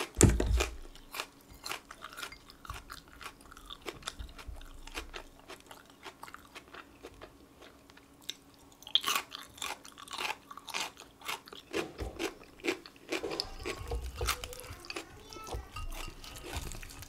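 Close-miked crunching and chewing of raw green onion, then of a cube of pickled radish, with a burst of crisp crunches about nine seconds in and more from about thirteen seconds on.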